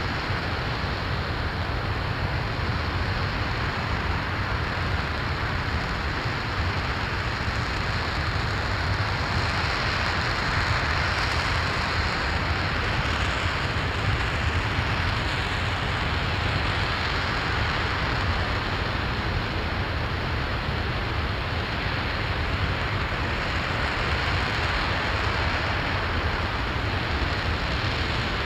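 NASA RS-25 liquid-hydrogen/liquid-oxygen rocket engine firing on a test stand: a steady, unbroken rushing noise with a deep rumble underneath.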